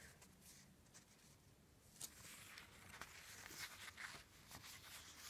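Near silence with faint, brief rustles and taps of paper pages being handled.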